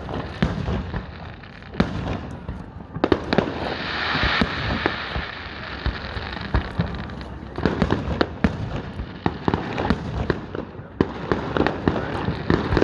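Fireworks going off: a continual run of sharp cracks and pops, dense crackling clusters in the second half, and a hissing burst that swells about four seconds in and fades a few seconds later.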